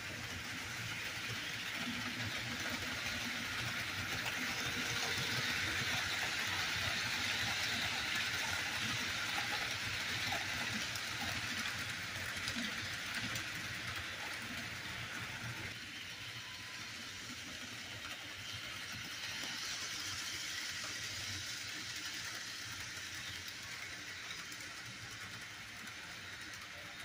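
HO scale model train rolling along its track: a steady rushing of wheels and motor with light clicks, swelling in the first half as it passes and fading toward the end.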